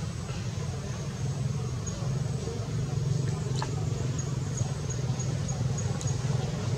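Steady low outdoor rumble, like a nearby engine or traffic, with a couple of faint clicks about halfway through and near the end.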